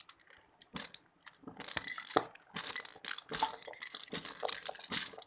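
Crinkling and crunching from candy and its plastic packaging being handled, a dense run of short rustles and crackles that starts about a second and a half in.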